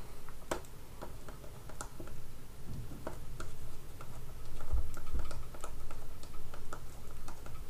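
A stylus tapping and scratching on a tablet as handwriting is written, heard as irregular light clicks, with a couple of soft low bumps about two-thirds of the way through.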